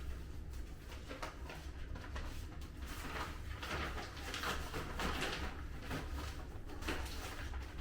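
Packaging and clothing being handled: irregular rustling and crinkling, over a steady low hum.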